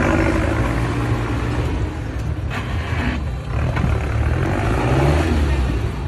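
Off-road 4x4's engine revving hard, its note rising and falling.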